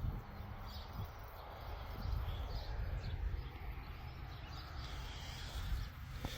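Outdoor ambience: a low, uneven rumble with a few faint bird chirps.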